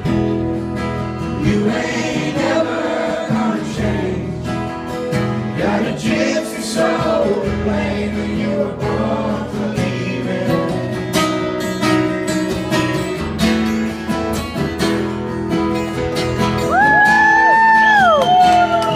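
Live acoustic country music: acoustic guitars strummed under singing. Near the end a louder, high lead melody with bending notes comes in.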